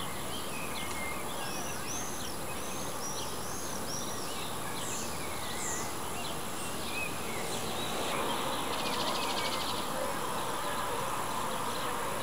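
Field ambience. A songbird sings a run of repeated arching whistled notes over the first few seconds. From about two-thirds of the way in, an insect's fast, high, pulsing trill takes over.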